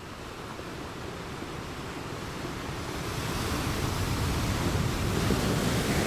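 Steady rushing noise like surf or wind, fading in and slowly swelling louder toward the end.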